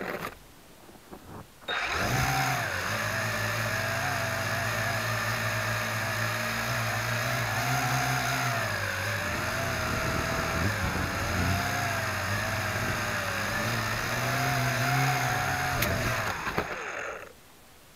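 Intruder UFO quadcopter's electric motors and propellers running right beside the camera, a steady whine whose pitch rises and falls. It starts abruptly about two seconds in and cuts off about a second before the end.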